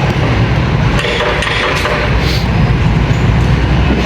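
Loud construction-site and street din: a steady low rumble with a few sharp metallic clinks and knocks in the middle.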